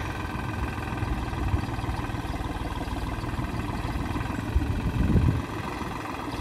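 Farm tractor's engine running steadily as the tractor moves with a tree root held in its front-loader grapple, with a brief louder swell about five seconds in.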